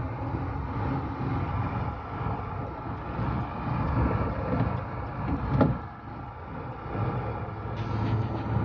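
Vehicle engine running with a steady low rumble as it rolls over a wet dirt road, heard from inside the cab. A sharp knock comes about five and a half seconds in.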